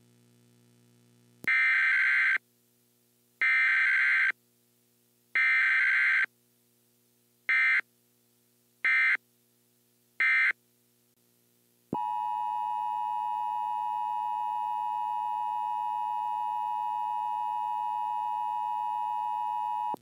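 Emergency Alert System tones: three bursts about a second long of screechy digital header data, then three brief bursts, then from about twelve seconds in a steady attention tone near 1 kHz that holds to the end.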